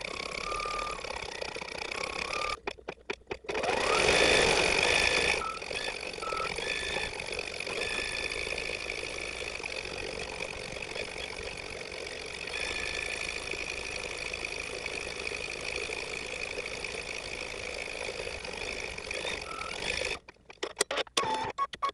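Embroidery machine stitching out a design, its rapid needle-and-motor whir sped up threefold. A louder noisy stretch comes about four seconds in, and the sound drops out briefly twice at edits.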